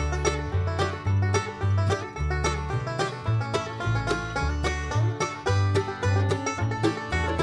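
Background bluegrass music with a plucked banjo over a steady walking bass.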